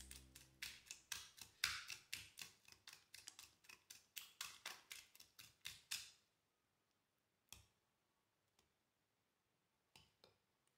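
A quick run of sharp taps or clicks, about four a second, stopping about six seconds in, then a few single clicks.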